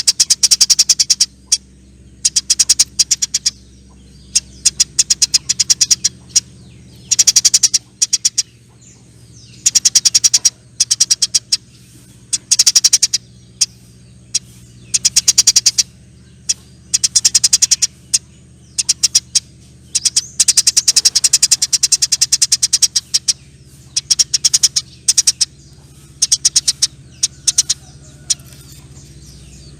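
Eurasian tree sparrow chattering in long, rapid rattling bursts, each lasting about one to two seconds and repeated every second or two. A faint steady low hum runs underneath.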